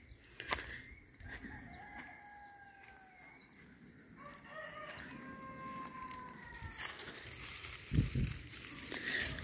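Rooster crowing, a few drawn-out crows one after another. A couple of dull thumps near the end.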